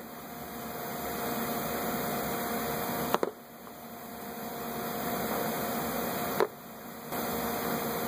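Steady hiss of workshop background noise with a faint hum, slowly swelling and dropping off suddenly twice, with a light click about three seconds in.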